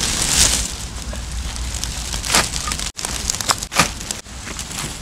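Rustling and crackling on dry leaf litter, then a bundle of dry sticks being set down and handled, with a few sharp wooden knocks about halfway through and a little later.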